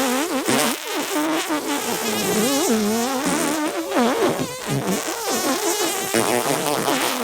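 Music with a lead melody that slides and wobbles up and down in pitch.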